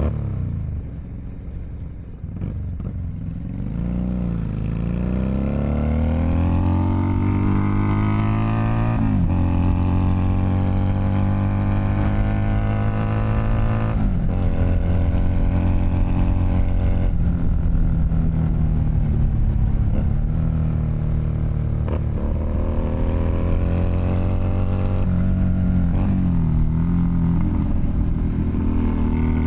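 Keeway SCR 250V motorcycle with a custom shortened, chopper-style exhaust, ridden. The engine eases off briefly at first, then accelerates in rising pulls, each cut short by a gear change about four or five times.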